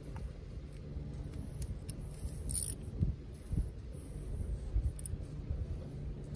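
Hand tools and metal parts being handled while a sail drive is reassembled: scattered clicks and two knocks over a steady low hum, with a short hissing scrape about two and a half seconds in.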